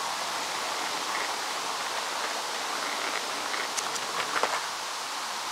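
Skateboard wheels rolling on a paved path, a steady rushing noise, with a few faint clicks near the end.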